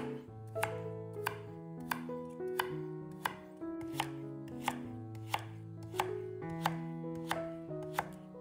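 A knife chopping food in steady, evenly spaced strokes, about three every two seconds, over soft background music with held notes.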